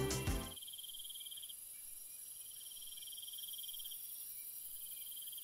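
An insect, cricket-like, trilling in repeated phrases of one to two seconds with short gaps, over a steady high insect hiss. The tail of background music cuts off about half a second in.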